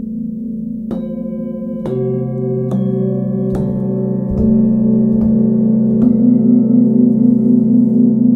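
A set of hand-forged Tibetan singing bowls tuned to the scale C to B, struck one after another with a padded mallet: seven strikes a little under a second apart. Each strike adds a new ringing tone to those still sounding, building into a loud, layered, pulsing ring that sustains after the last strike.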